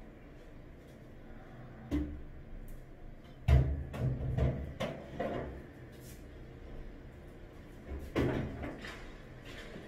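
Several knocks and clatters in a small room: one sharp knock about two seconds in, a loud cluster of knocks a little after three seconds, and another short group near the end, over a low steady hum.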